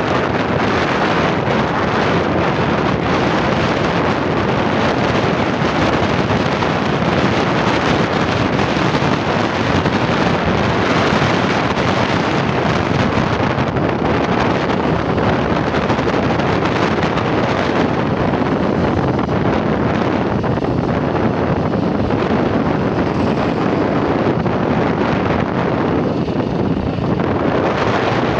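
Steady, loud wind buffeting the microphone of a camera carried on a moving motorcycle, a dense rushing noise that covers any engine or traffic sound.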